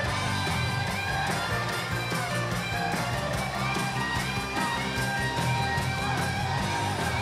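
Guitar-driven music with a steady beat.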